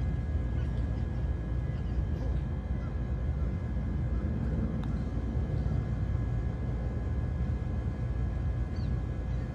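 Open-air ambience on a golf green: a steady low rumble with a few faint bird chirps, and a faint tick about five seconds in as the putter strikes the ball.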